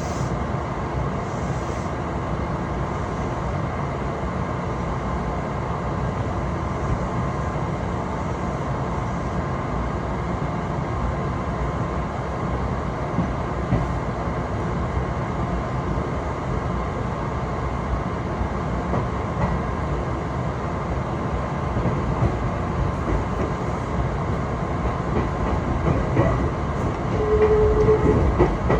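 Passenger train running along the line, heard from on board: a steady rumble with a faint running whine. Near the end the wheel clatter grows and a short squeal sounds.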